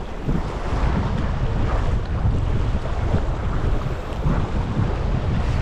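Wind buffeting the microphone, a gusting low rumble, over the wash of waves.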